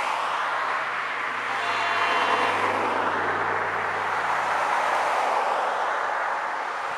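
Road traffic passing: the steady hiss of tyres and engines on pavement, with one vehicle's engine droning low through the middle few seconds.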